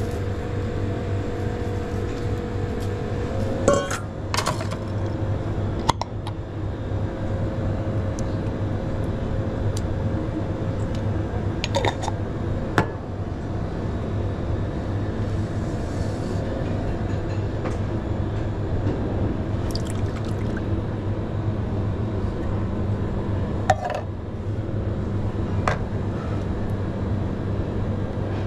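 Steady low hum of commercial-kitchen ventilation. About six sharp clicks and knocks come through it from a metal can, a steel bowl and utensils being handled.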